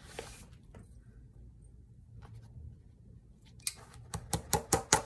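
Lasting pliers gripping and pulling a leather shoe upper over a shoe last. Faint handling at first, then a quick run of sharp clicks near the end, growing louder.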